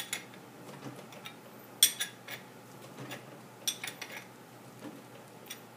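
Sharp metal clicks and clinks from a bicycle chain tool and a KMC X10SL chain as the tool's handle is turned to press a pin out of a link, several scattered clicks with the pin not yet through.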